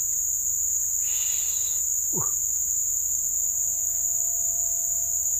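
Steady, high-pitched chorus of insects such as crickets or cicadas, shrilling without a break. It is the loudest sound throughout.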